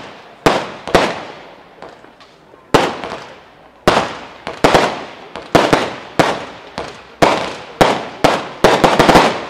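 Consumer firework battery firing shot after shot: more than a dozen sharp bangs, each trailing off in a short crackle. They come at irregular gaps, quicken into a fast cluster near the end, then stop.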